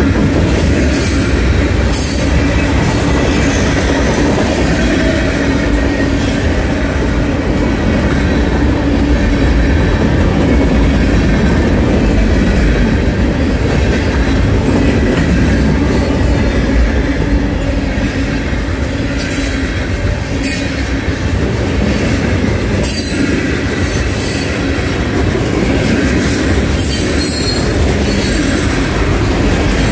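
Freight cars of a Norfolk Southern train rolling steadily past at close range: a continuous rumble and rattle of steel wheels on rail, with wheels squealing on the rail at times and an occasional sharper clank.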